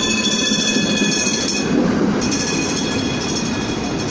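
Vintage PCC streetcar rolling past on its rails with a high, steady wheel squeal that breaks off briefly about halfway through, over the low rumble of the car running.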